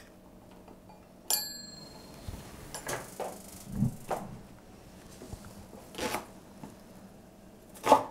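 A cleaver blade clinks against a small stainless-steel bowl about a second in, with a brief metallic ring, as minced garlic is scraped into it. A Chinese cleaver then chops leek on a wooden cutting board in a few separate, unevenly spaced knocks, the loudest near the end.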